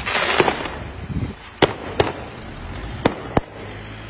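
Fireworks going off: a dense crackle in the first half-second or so, then four sharp bangs in two close pairs.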